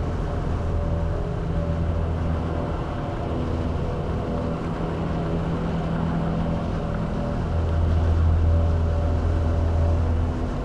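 Vehicle driving along a highway: a steady low drone with road and wind noise. The drone fades briefly a few times and comes back strongly near the end.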